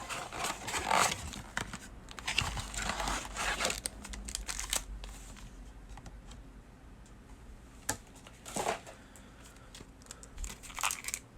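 Trading card box and pack wrappers being torn open and crinkled by hand, in irregular rustling bursts, busiest in the first few seconds, with a sharp click a little past halfway.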